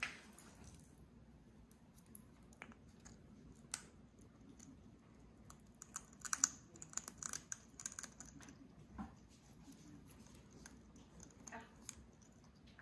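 Irregular light clicks and taps from an African grey parrot on a wooden floor, pecking at scattered seeds and pellets, with a quick cluster of clicks about halfway through.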